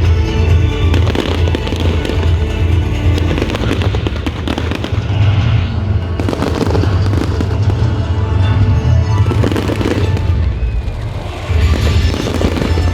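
Fireworks going off in a dense, unbroken barrage of crackles and bangs over a heavy low rumble.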